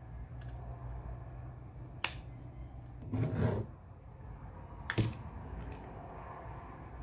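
Hands handling a plastic USB-to-SATA adapter and its power adapter and cables: a sharp click about two seconds in, a brief rustle and thud a second later, and another click about five seconds in, over a low steady hum.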